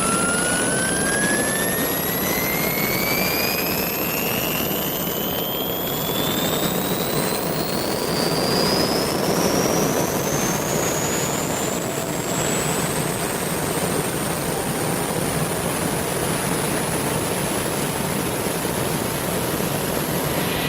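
Helicopter turbine engine running, its high whine climbing steadily in pitch over a constant rumble as the turbine spools up.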